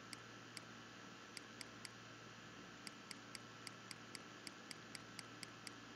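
Faint computer mouse clicking: about sixteen sharp clicks in short runs, coming several a second from about halfway through, as the font size is stepped up. A steady low hum lies underneath.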